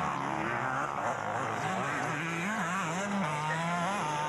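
Several two-stroke motocross bikes running and revving together, their engine notes rising and falling and overlapping.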